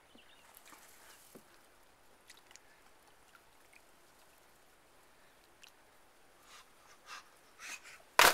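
Mostly quiet with faint scattered clicks, then near the end a sudden loud splash as a cliff jumper plunges feet first into a deep river.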